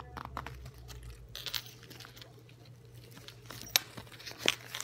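Fabric of a Blissfare neck travel wallet rustling and crinkling in the hands, with scattered small clicks and two sharper clicks in the last second or so.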